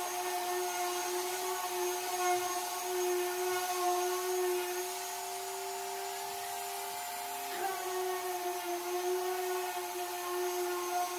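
Random orbital sander with 220-grit paper running on a primed cabinet, its dust port hooked to a running shop vac: a steady motor whine over the hiss of sanding. The whine shifts slightly in pitch about seven and a half seconds in. This is the primer coat being sanded smooth between coats.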